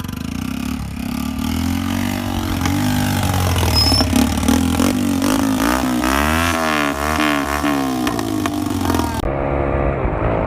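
Tractor diesel engine running hard under load, its revs rising and falling several times.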